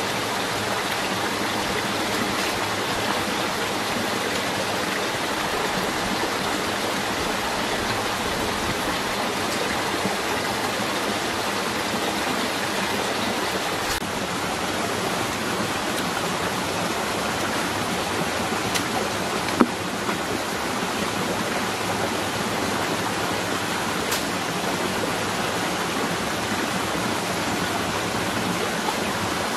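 Steady rushing of running water, with one sharp click about twenty seconds in.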